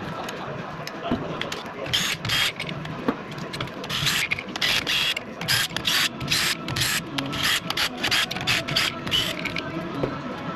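Ratchet wrench loosening the main cap bolts on a Ford Coyote V8 block, in about a dozen short spells of quick clicking from about two to nine seconds in.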